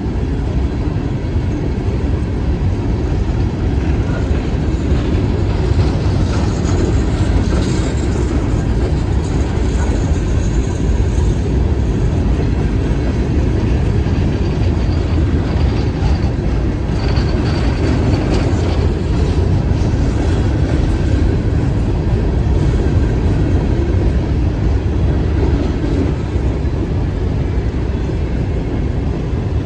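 Train rolling past at close range: a steady, loud rumble of wheels on the rails with faint clicking from the rail joints throughout.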